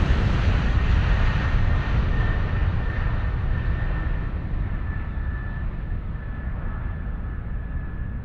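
Helicopter in flight, heard from inside the cockpit: a steady drone of engine and rotor with a faint steady high whine, slowly fading down.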